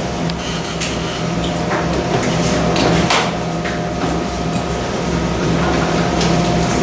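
Steady low electrical hum with scattered small clicks, taps and clinks of hand tools and parts being handled on workbenches, irregular and several seconds apart at most.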